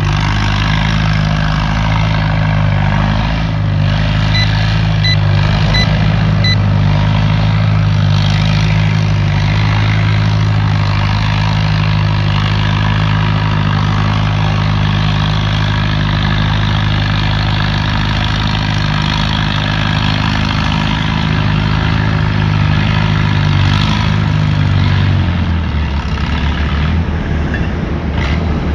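A motor running steadily at one speed, then dropping to a lower pitch near the end.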